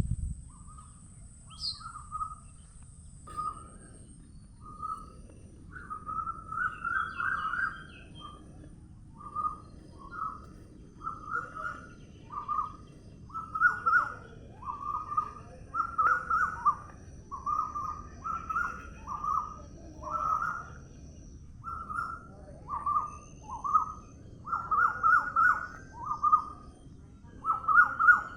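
Birds calling outdoors: a bird repeats short chirping notes about once a second, coming faster and louder after the first few seconds, over a low steady background hum of environmental noise.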